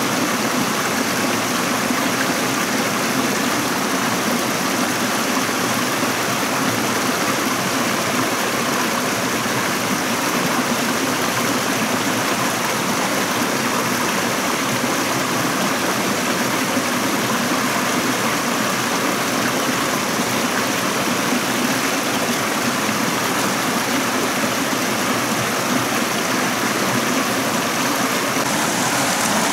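Running water of a stream rushing steadily.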